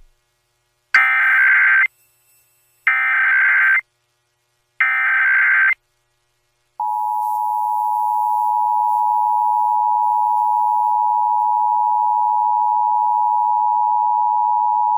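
Emergency Alert System tones for the nationwide test: three short bursts of warbling digital SAME header data about two seconds apart, then the two-tone attention signal, a steady harsh dual tone held for about eight seconds and cutting off near the end.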